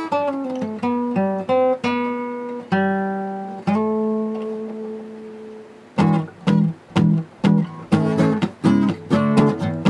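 Acoustic guitar intro: single picked notes, then a chord left ringing and fading for a couple of seconds. About six seconds in it changes to a steady strummed rhythm.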